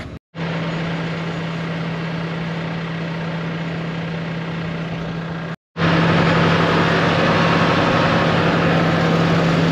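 Handheld propane torch hissing steadily as it thaws frozen tractor hydraulic couplers, whose cold, stiff oil keeps them from latching. An engine idles steadily underneath. The sound drops out briefly twice.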